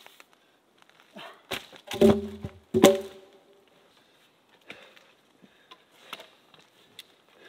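Cut logs thrown down onto other logs, clonking hollowly wood on wood. Two loud knocks come about a second apart near the middle, each ringing briefly, then lighter knocks.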